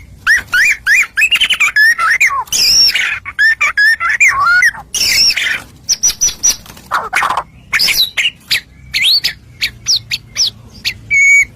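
White-rumped shama (murai batu) singing a fast, varied song of clear whistled phrases that rise and fall, broken by a few harsh rasping notes.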